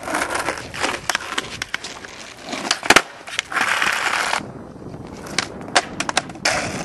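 Skateboard wheels rolling on asphalt, with sharp clacks of the board hitting the ground; the loudest clack comes about three seconds in, and several more follow near the end.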